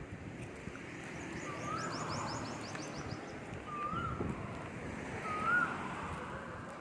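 Birds calling: a short whistled note that rises and falls, repeated three times, over a fast high trill in the first half, against steady low outdoor background noise.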